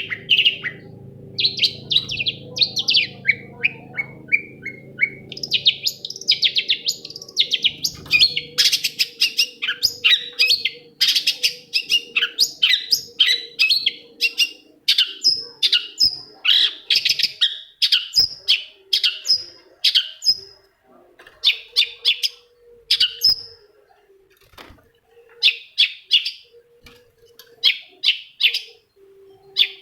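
Long-tailed shrike (cendet) singing: rapid runs of short, scratchy, chattering notes, with brief pauses between phrases in the second half.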